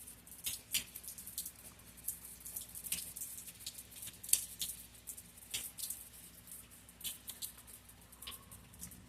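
Raindrops pattering in irregular sharp taps, several a second, over a faint steady hum.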